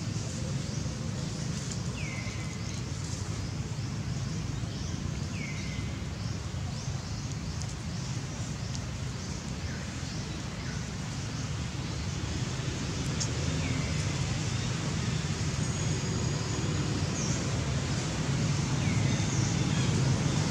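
Outdoor ambience: a steady low rumble with a few short chirps every few seconds, growing louder in the last third.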